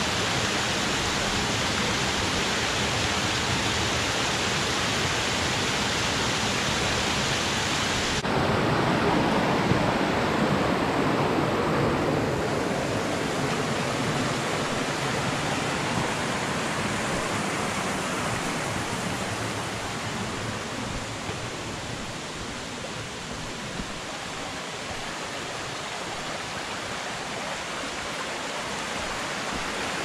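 Steady rush of a small waterfall on a rocky mountain stream. About eight seconds in it changes abruptly to the stream running over rocks, which grows quieter in the last third.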